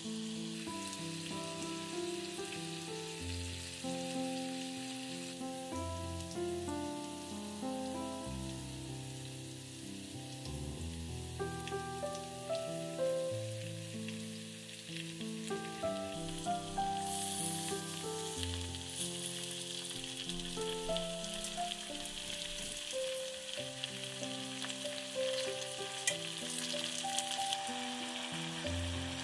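Food frying and sizzling in a pan, growing louder a little past halfway, under background music of slow, held melodic notes.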